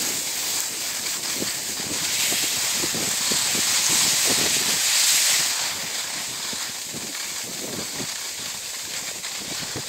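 Snowboards sliding over packed snow: a steady hissing scrape that is louder for about the first five seconds and then eases as the riders slow down.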